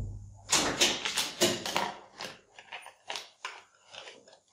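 A set of L-shaped hex keys in a plastic holder being handled and pushed into a clear plastic blister pack. The plastic crinkles and clicks irregularly, busiest in the first couple of seconds and then in sparser clicks.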